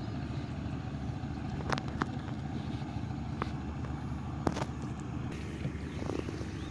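A steady low rumble, with a few sharp knocks and clicks from the wooden boat and net gear.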